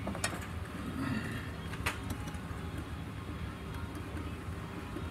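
A few sharp clicks as brittle hard plastic engine lines and their connectors are handled and pushed back into place, over a steady low background hum.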